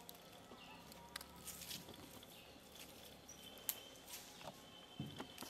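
Faint forest ambience: scattered small clicks and rustles, a few short high chirps, and a faint steady high tone over a quiet hiss.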